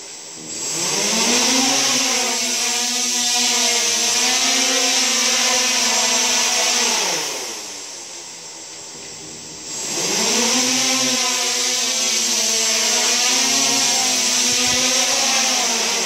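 S500 quadcopter's electric motors and propellers spinning up to a steady, slightly wavering whine, then winding down about seven seconds in. They spin up again about ten seconds in and run until near the end.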